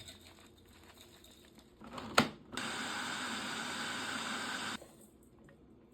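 A sharp click, then about two seconds of a small kitchen appliance's motor running steadily, cut off suddenly.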